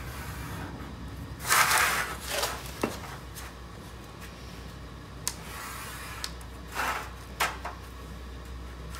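Felt-tip marker drawn along a steel square on a sheet-metal panel: a few short scratchy strokes, the loudest about a second and a half in, with light clicks as the square is set down and shifted on the metal.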